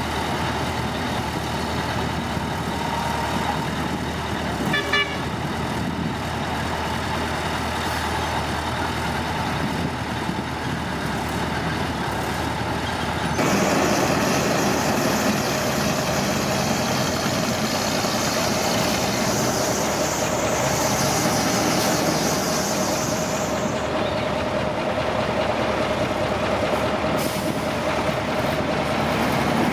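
Heavy construction machinery engines running steadily, with a short high toot about five seconds in. About halfway through, the engine note gets louder and a steady whine comes in, lasting almost to the end.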